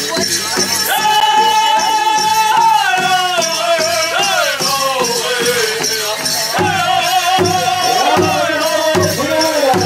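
Powwow drum group singing around a big hand drum. A high voice comes in about a second in, holds, then slides down in a falling melody, over steady, evenly spaced drumbeats.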